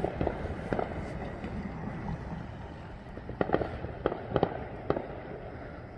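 Fireworks going off, a handful of scattered sharp bangs and pops, most of them in the second half, over a steady low background noise.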